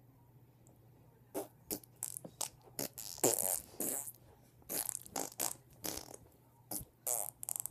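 A run of short, irregular fart noises, starting about a second and a half in, with a few longer ones in the middle.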